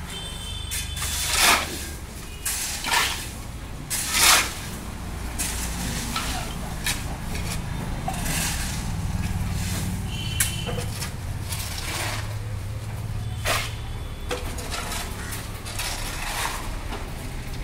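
Concrete being mixed on a building site: a steady low machine hum with irregular scraping and clattering strokes on top, the loudest about a second and a half and about four seconds in.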